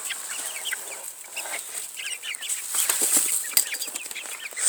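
Several chickens clucking in short, scattered calls, with some rustling and scuffling.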